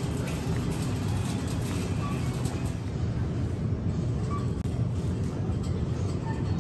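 Wire shopping cart's wheels rolling over a hard store floor: a steady low rumble.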